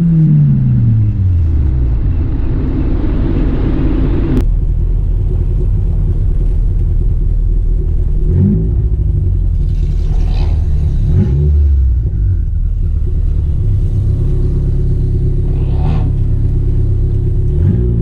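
Turbocharged Acura RSX four-cylinder engine coming down in revs over the first two seconds, then running low and steady with a few short throttle blips. A hiss over the engine cuts off suddenly about four seconds in.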